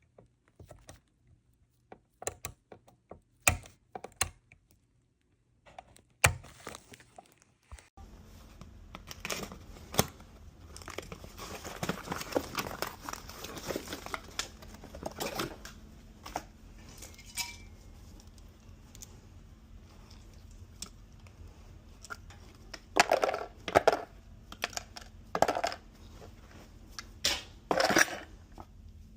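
Hands handling small parts and tools: scattered clicks, clinks and crinkling. A steady low hum comes in about eight seconds in, under repeated knocks, with a louder run of clatter near the end.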